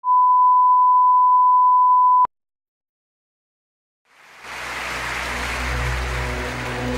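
A steady 1 kHz line-up test tone of the bars-and-tone kind, cutting off abruptly a little over two seconds in. Silence follows, then about four seconds in an intro music bed swells up.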